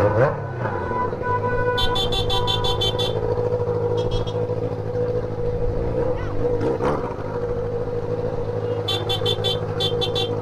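Road traffic with vehicle horns honking over running engines; an engine rises in pitch at the start and again around seven seconds in. Rapid high-pitched beeping comes in twice, about two seconds in and near the end.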